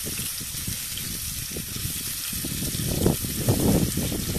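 Slices of meat sizzling in a hot frying pan on a portable gas stove, a steady hiss. From about two and a half seconds in, louder low rumbling bursts come over it.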